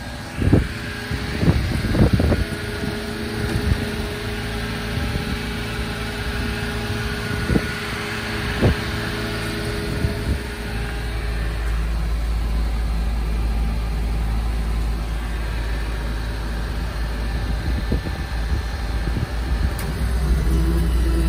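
Suzuki Carry mini dump truck's engine idling steadily, with a few sharp knocks in the first nine seconds and a low rumble joining from about halfway.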